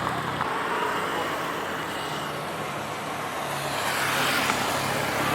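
A motor vehicle engine running with a low hum over steady outdoor noise, swelling from about three and a half seconds in.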